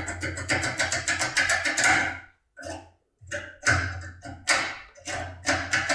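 Foil impression tool being worked in a lock cylinder with short, sharp jerks of the handle: rapid metallic clicking and rattling, about five taps a second at first, then broken into separate bursts with brief pauses.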